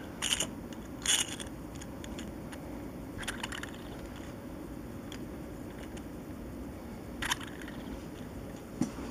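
Beyblade metal-and-plastic spinning top and launcher being handled. Two short sharp clicks in the first second or so are followed by a brief scrape about three seconds in as the top is launched, and another click near the end. The top spinning on the cloth is barely heard under a low steady hum.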